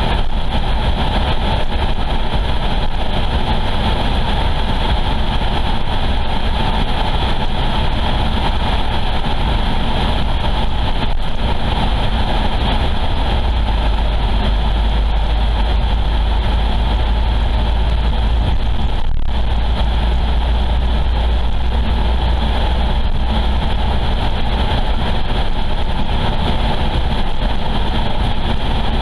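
Steady road and engine noise of a car driving along an open highway, a continuous rumble with a heavier low drone for a stretch around the middle.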